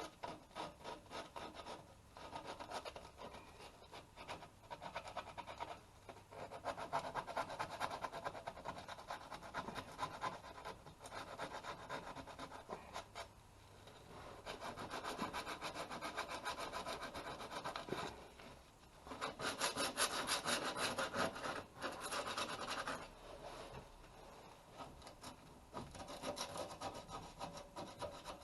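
Metal being sanded by hand: bursts of quick abrasive rubbing strokes with short pauses, loudest about two-thirds of the way in.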